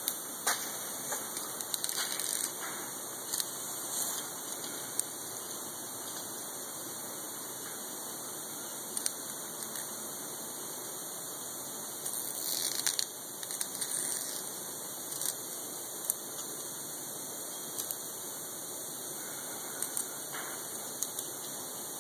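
Fingers picking and peeling flaking clear coat off an Audi TT's painted roof: scattered faint scratches and crackles over a steady hiss, with a louder stretch of scraping a little after halfway through. The clear coat has failed and is lifting off the paint.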